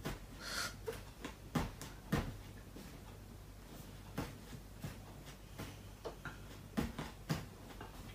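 Quiet room with a steady low hum, a short breathy noise about half a second in, and a handful of irregular soft clicks and knocks.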